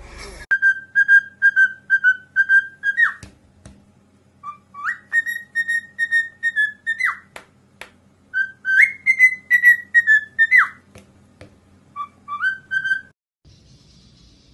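Cockatiel whistling a tune: several phrases of short, repeated clear notes, each phrase ending in a quick swoop in pitch, with short pauses between.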